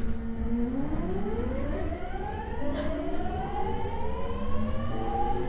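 Inverter and traction motors of a Tokyo Waterfront Area Rapid Transit 70-000 series train, with its original unrenewed VVVF inverter, heard from inside the car as the train accelerates. Several whining tones climb together and jump to a new pitch pattern about two and a half seconds in and again near the end, as the inverter changes mode. Underneath is a steady low rumble from the running gear.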